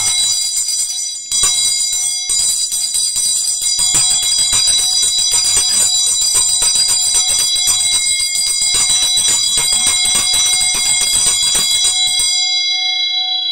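Tibetan Buddhist ritual hand bell (drilbu) shaken rapidly so its clapper strikes the rim over and over, building a bright, shimmering ring of several steady high tones. It pauses briefly about a second in, and the clapper stops about 12 seconds in while the bell rings on, very resonant, as the bell's resonance is tested.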